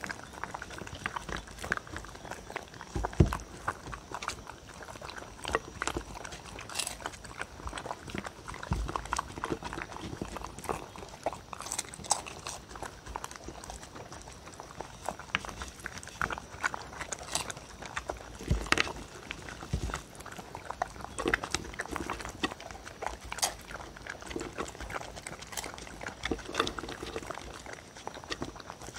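Two dogs eating together from one wooden bowl, lapping pet milk and crunching cereal rings, heard as a continuous run of irregular wet laps, crunches and clicks.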